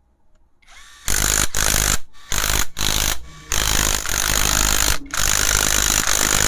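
Cordless 20 V drill driving bolts into the clutch cover of a Bajaj Discover 150 motorcycle engine. It starts about a second in and runs in about six short bursts with brief pauses between them, the last two running longer.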